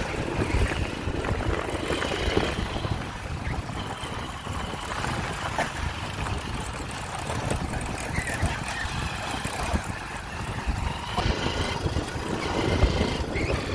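Motorcycle engine running steadily while riding, a continuous low rumble with road noise.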